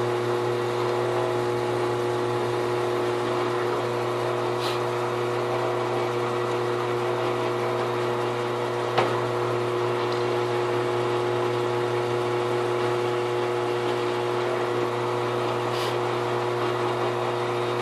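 Drill press motor running at a steady speed while an 82-degree countersink bit cuts a countersink into an aluminum plate, a constant hum with a few faint ticks.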